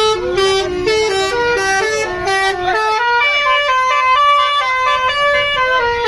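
Telolet horn on a Marita Transport tour bus playing a quick melody of stepped horn notes, several a second, moving up to higher notes about halfway through.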